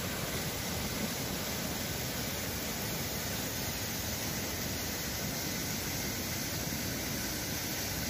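Waterfall: falling water making a steady, unbroken rushing noise.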